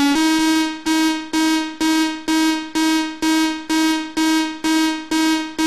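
Electro house remix: a single synthesizer note struck over and over, a little more than twice a second, each stab fading before the next, with no kick drum underneath.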